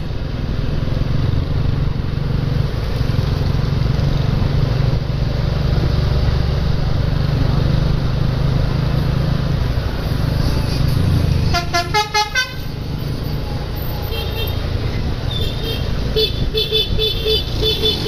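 A bus engine rumbles as the bus approaches. About twelve seconds in, the bus's "telolet" musical air horn sounds a quick run of short notes. From about fourteen seconds on, short horn notes repeat several times a second.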